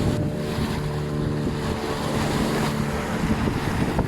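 Ketinting motorboat engine running steadily at sea, with waves splashing and wind buffeting the microphone.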